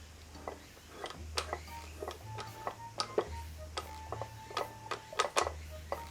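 Background music: a low bass line that changes note about once a second, short plinking notes, and scattered ticking clicks.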